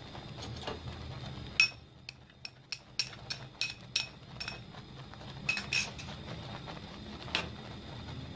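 About a dozen sharp clinks of kitchenware, each with a short ringing tone, mostly in the first half and a last one near the end, over a low steady hum.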